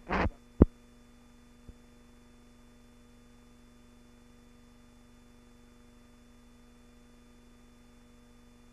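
Steady electrical hum and hiss of an old film soundtrack, with a single sharp click about half a second in and a fainter one a second later.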